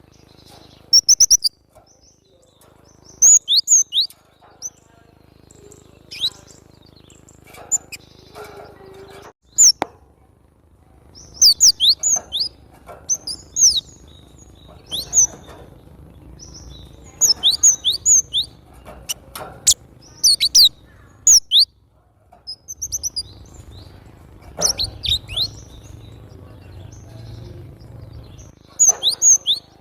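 Cinereous tit (glatik batu) singing vigorously: clusters of short, sharp, high whistled notes, many falling in pitch, come in bursts every few seconds with brief pauses between.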